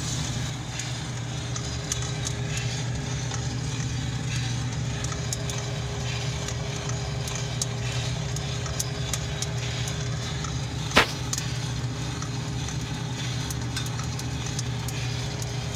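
Coffee beans tumbling and ticking inside a turbo-oven-heated drum roaster, with scattered sharp snaps as the roast nears second crack, and one louder click about eleven seconds in. Under it runs the steady hum of the turbo oven's fan and an exhaust fan.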